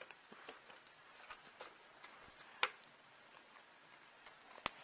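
Faint, irregular clicks and taps of a plastic 6-pin power-supply connector and its cables being handled and pushed into place inside a PC case, with a louder click a little past halfway and another near the end.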